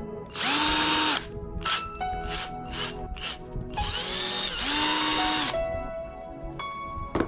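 Nanwei 12V brushless cordless drill spinning up and stopping under the trigger: two longer runs of about one and nearly two seconds, with a rising whine at start and a falling one at stop, and several short trigger blips between them. Background music plays underneath.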